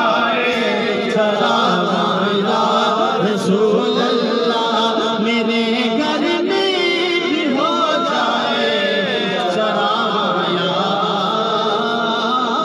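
A man singing a devotional naat into a microphone, with long, wavering held notes.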